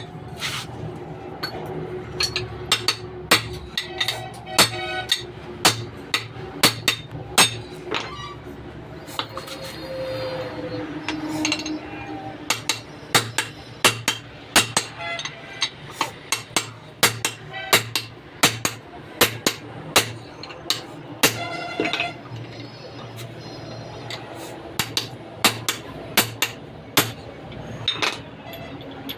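Hammer blows on steel while a propeller shaft's universal-joint cross is changed: dozens of sharp metallic strikes at an irregular pace of about one or two a second, some left ringing.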